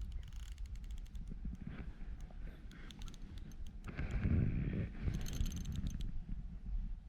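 Fishing reel clicking in short runs of rapid ticks while a hooked fish is played, with a rustle of handling about four seconds in over a low rumble.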